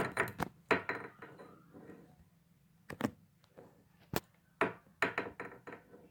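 Irregular knocks, taps and clicks from a phone camera and its mount being handled while trying to zoom in. There are several quick ones at the start, single knocks about three and four seconds in, and a short cluster near the end.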